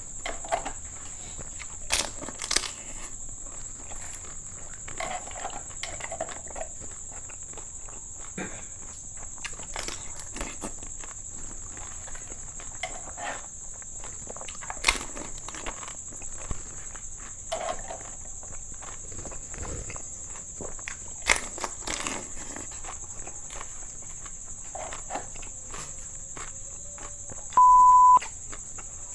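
A person eating golgappa (crisp pani puri shells): scattered short crunches and mouth clicks over a steady high-pitched whine. Near the end there is one short, loud beep.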